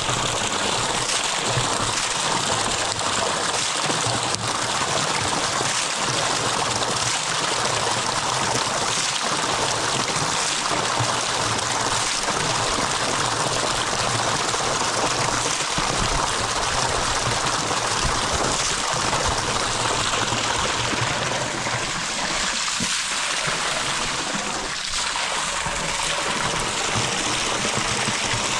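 Water flowing steadily, a constant rushing and trickling that holds at the same level throughout.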